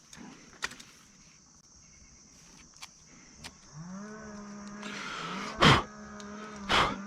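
A motor hum rises in pitch about halfway through, then runs steadily. Two loud knocks come near the end. Faint clicks before that.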